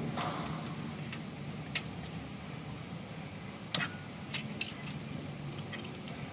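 Hand tools clinking on the valve gear of a Mitsubishi 4N15 engine during a valve-clearance adjustment: a screwdriver and ring spanner working the adjusting screws and locknuts. There are four sharp metallic clinks, one about two seconds in and three more close together a little later, over a low steady hum.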